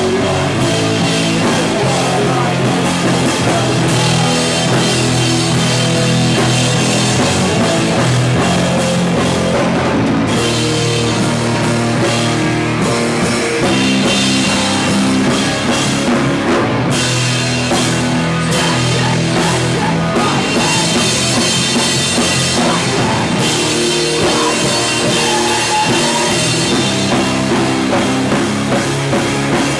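A rock band playing live and loud: a drum kit with crashing cymbals, a bass guitar and an electric guitar, all running steadily without a break.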